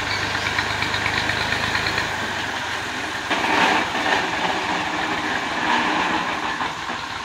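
Massey Ferguson 385 tractor's diesel engine running while the hitched trailer is tipped up to dump chaff, with a rhythmic ticking clatter at first. The low hum drops away about two seconds in, and there are louder noisy stretches about halfway through and again near the end.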